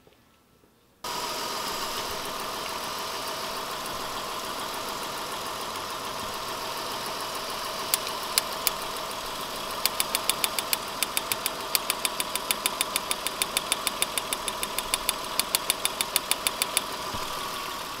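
Mitsubishi Galant V6 engine running, cutting in abruptly about a second in. From about ten seconds in, sharp snapping clicks, about four a second, come from spark jumping from a test light to the ignition coil: the coil is firing.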